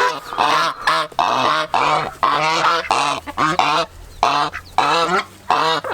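Domestic geese honking: a rapid, overlapping run of short honks, several a second, with a couple of brief pauses.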